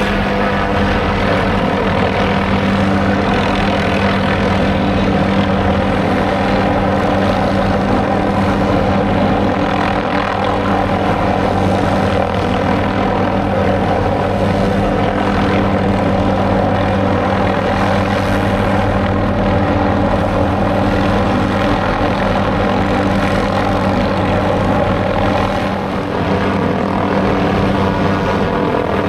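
MD 500D helicopter running steadily overhead during an aerial tree-trimming pass, its rotor and turbine making a loud, even drone with a steady low hum.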